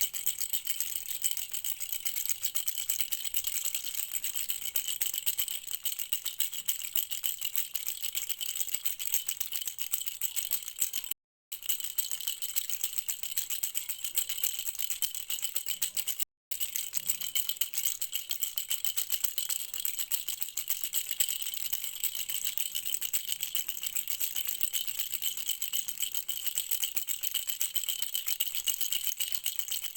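A rattle shaken continuously for a baby: a dense, rapid, high-pitched rattling of small loose pieces. It twice cuts out for a split second, about a third of the way through and again just past halfway.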